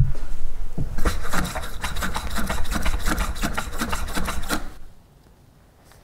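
Worn, unserviced mountain-bike air rear shock with a piggyback reservoir, pumped through its travel on a shock tester and making a rapid run of clicking, rasping noises that stops about five seconds in. The noise is a sign that the shock badly needs a service.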